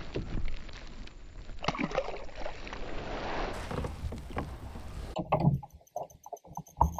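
Water sloshing against a kayak, with small knocks and clicks of handling. About five seconds in it changes abruptly to background music with a steady beat.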